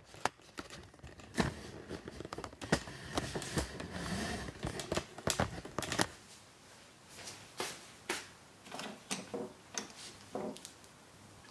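Irregular clicks, taps and rustling of hands handling tools and equipment, busy for the first six seconds, then sparser and quieter.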